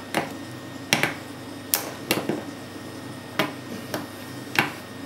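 Plastic and acrylic parts of an Eheim Skim Marine 800 protein skimmer clicking and knocking as they are handled and fitted together: a series of sharp, irregular clicks.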